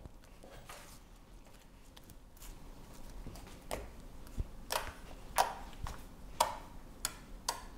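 Homemade borax-activated glue slime being pressed and kneaded by hand against a wooden tabletop, making a string of short, sharp clicks and squelches. These start a few seconds in and come at irregular intervals, about seven in all.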